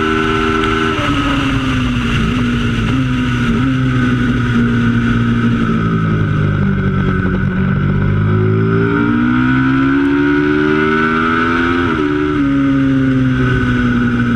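Twin-cylinder racing motorcycle engine running hard, its pitch stepping with gear changes. It falls away through the middle, climbs steadily, then drops sharply with an upshift about twelve seconds in.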